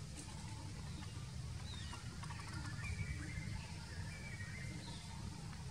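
Outdoor background noise with a steady low rumble, and a few faint high chirping calls about two to five seconds in.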